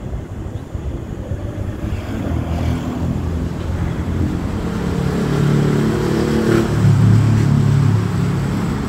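A motor vehicle's engine running, swelling from about five seconds in, loudest around seven seconds, then easing slightly.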